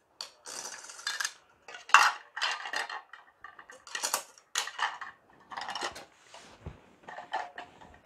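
Plastic parts of a citrus juicer and grater set clattering and knocking together as they are handled, in an irregular run of short knocks. The sharpest come about two seconds and four seconds in.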